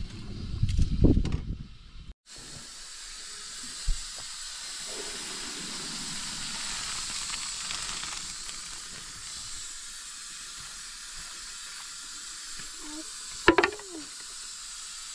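Low rumbling and knocking for the first two seconds, then, after a sudden break, a steady hiss of food cooking on the heat, with a single knock about four seconds in and a brief sharp sound near the end.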